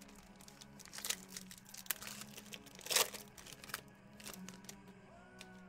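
Silver foil wrapper of a 2018 Topps Tier One card pack being torn open and crinkled by hand, in a few sharp crackling bursts, the loudest about three seconds in.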